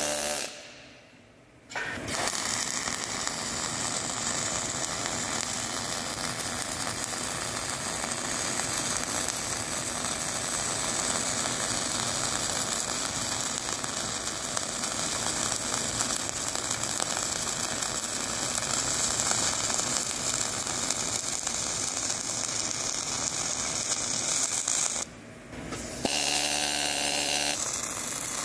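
Welding arc crackling steadily for over twenty seconds as weld is laid on a steel bar. A pneumatic needle scaler chatters on the weld just at the start and again near the end, knocking off slag and spatter.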